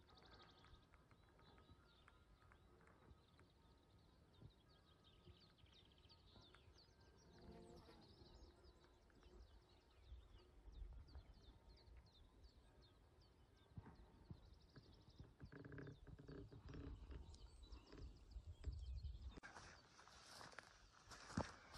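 Near silence: faint outdoor ambience with a low rumble and quick high chirps, a short low pitched call about eight seconds in and more around sixteen seconds, growing louder near the end.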